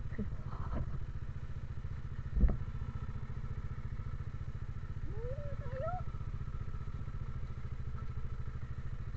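Motorcycle engine running steadily at an unchanging low speed, with a single thump about two and a half seconds in.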